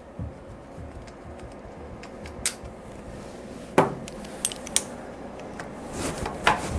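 Allen wrench clinking against the intake manifold bolts of a Harley-Davidson Evolution engine as they are loosened: scattered light metal clicks, a sharper clink about four seconds in, and a few more near the end.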